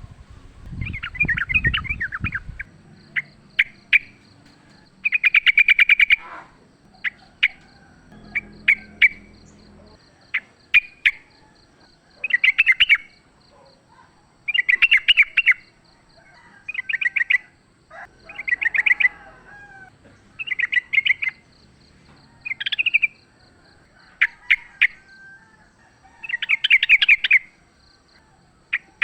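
Yellow-vented bulbul (trucukan) singing, with short bubbly phrases of rapid notes repeated every second or two. A low rumble runs under the first couple of seconds.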